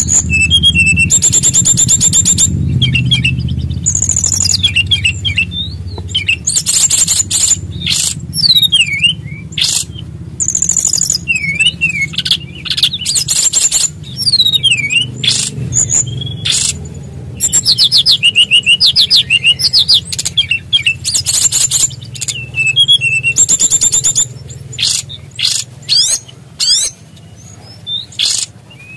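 An SRDC (sikatan rimba dada coklat) songbird singing loudly in repeated short phrases: very high, rapid rolling trills alternating with sliding whistled notes, with brief pauses between phrases.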